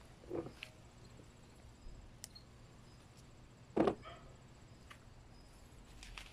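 Quiet rustling of Thai chili plant leaves and stems as a hand reaches in to pick chilies, with two short louder sounds, one about half a second in and the louder one about four seconds in.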